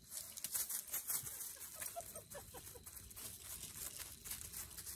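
Dry leaf litter rustling and crunching as a dog walks and sniffs over it, a run of small irregular crackles.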